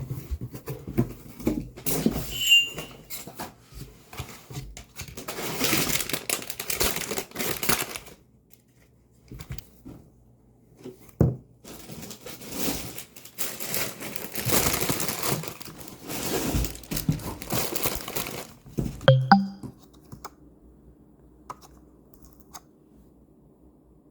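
Crinkling and tearing of packaging being handled, in long stretches, with a couple of sharp knocks.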